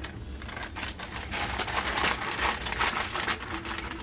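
Dense, rapid rustling and light scraping clicks of food being handled while layering a lasagna in a baking dish.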